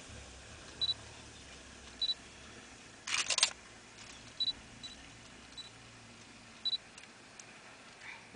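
Camera sounds: several short high electronic beeps at one pitch, typical of autofocus confirmation, and, about three seconds in, a quick run of shutter clicks, the loudest sound here.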